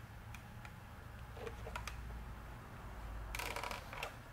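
Faint clicks and creaks from the plastic cyclone housing of a Dyson DC17 Animal as it is pressed and twisted by hand to work its internal snap clips loose, with a short scraping rustle a little over three seconds in.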